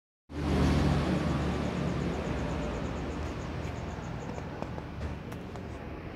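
Steady low rumble of background noise that slowly eases off, with a faint high ticking about four times a second during the first few seconds and a few light clicks.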